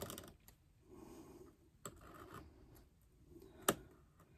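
A craft knife blade cutting through layered fabric: faint, short scratchy strokes, with one sharp click near the end.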